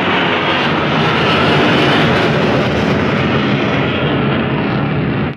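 Fighter jet flying overhead: loud, steady jet engine noise that eases slightly near the end.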